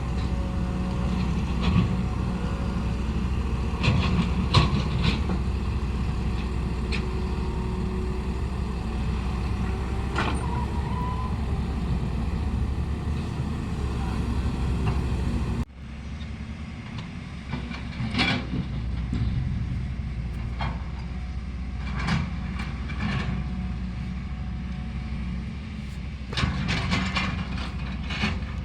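A vehicle's engine running steadily with scattered knocks and rattles. About halfway through, the sound cuts off abruptly to a quieter stretch of the same running noise.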